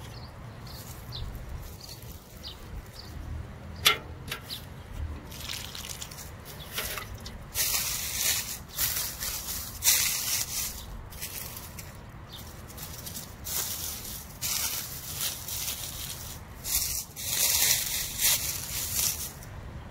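Water trickling in a freshly watered planting hole, then dry leaf mulch rustling and crackling in several bursts as hands push it aside to set a tomato seedling into the soil. There is one sharp click about four seconds in.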